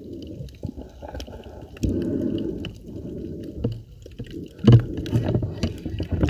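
Muffled underwater water noise and gurgling heard through a submerged camera, with scattered clicks and a few louder knocks near the end.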